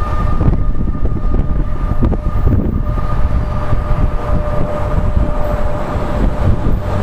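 New Jersey Transit electric commuter train pulling away along the track, a steady rumble with a steady electrical whine over it, and wind buffeting the microphone.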